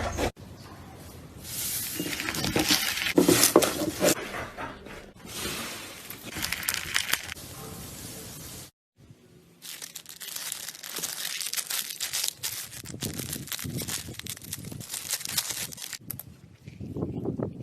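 Slime being squeezed and pressed by hand, giving dense crackling and popping. The sound stops briefly about nine seconds in, then similar crackling resumes.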